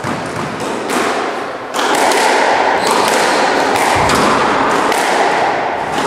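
Squash rally: the ball cracking off rackets and the walls about once a second, with a deeper thud about four seconds in, over a steady hiss that grows louder about two seconds in.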